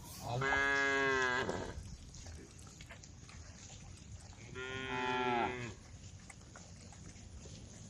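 Cow mooing twice, each moo about a second long: one just after the start and a second about four and a half seconds in.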